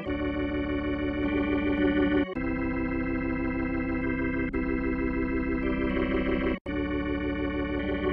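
Organ music: held chords that change every two to four seconds, with short breaks between them, played as background during a silent prayer.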